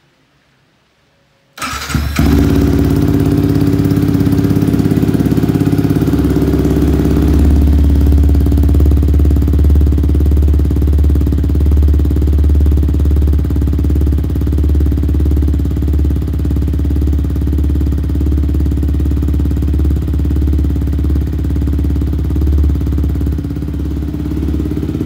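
Yamaha MT-15's single-cylinder engine cold-starting about a second and a half in, then idling steadily with a low, even pulse through an Akrapovic-style aftermarket exhaust with no dB killer fitted.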